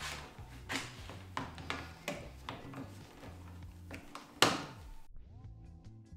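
Hand snips cutting a hole in a van's plastic undershield: a string of sharp crunching snips at uneven intervals, the loudest about four and a half seconds in. They stop after about five seconds.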